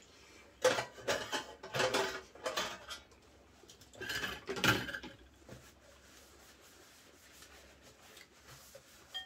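Spoons and chopsticks clinking and scraping against bowls and dishes during a meal. It is busiest in the first half, and a single clink near the end leaves a brief ringing tone.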